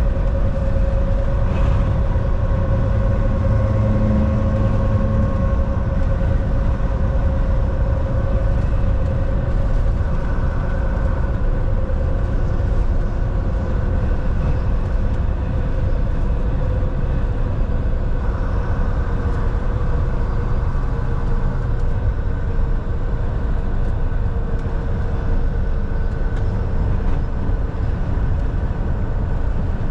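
Volvo semi truck driving at a steady speed: a constant low engine and road rumble, with a steady whine that slowly sinks in pitch.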